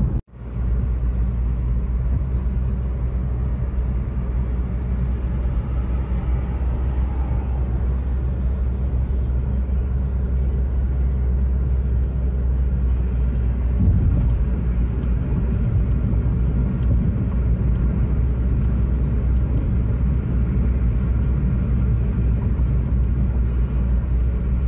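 Road noise inside a moving car: a steady low rumble of tyres and engine. The sound drops out for a moment near the start.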